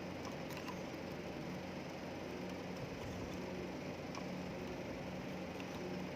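Steady low hum with a few faint light clicks.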